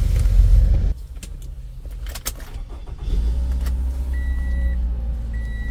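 A 2016 Toyota RAV4 being started: after a low rumble that stops about a second in and a few clicks, the engine starts about three seconds in and settles into a steady low idle. Near the end a high electronic chime starts beeping at an even pace, about once a second.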